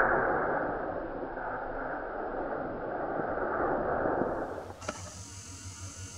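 Rolling echo of a rifle shot across the hillsides, a long rumble that fades, swells briefly and dies away about four and a half seconds in. After it only a faint low hum remains.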